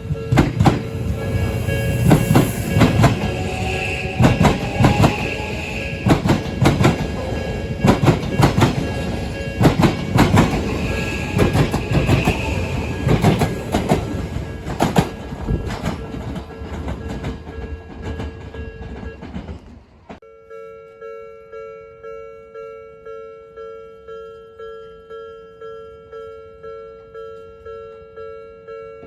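A train passes over a level crossing, its wheels clattering over the rail joints, while the crossing's electronic warning bell rings steadily. The train clears about two-thirds of the way through, and the bell keeps ringing alone with an even, repeating ding.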